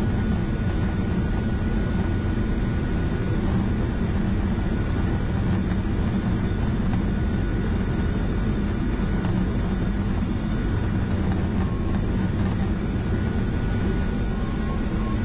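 Ekolot Kr-030 Topaz ultralight's engine and propeller running steadily with rushing airflow, heard inside the cockpit on final approach to landing.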